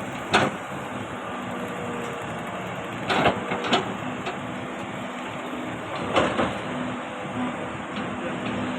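Excavator engine running steadily, with four sharp knocks or clanks: one near the start, two close together a little past three seconds, and one just past six seconds.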